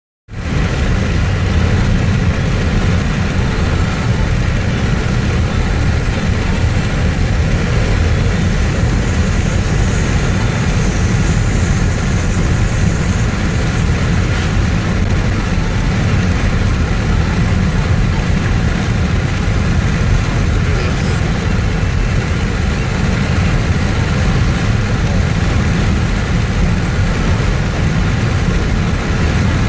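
Steady vehicle engine and road noise, heaviest in the low end and unchanging throughout, with a few faint steady tones above it.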